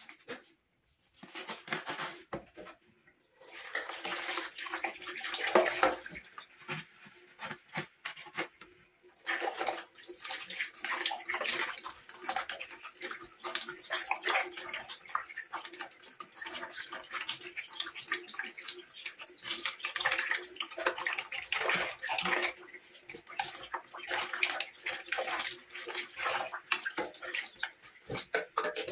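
Water running and splashing in irregular bursts, as when rinsing and washing by hand, with a faint steady hum underneath.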